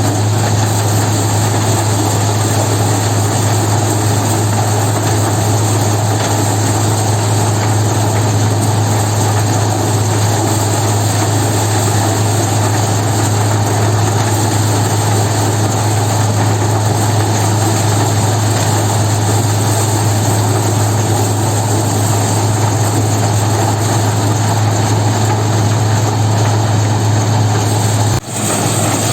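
A heavy engine running steadily, with a strong low hum under a broad mechanical noise, dropping out for a moment near the end.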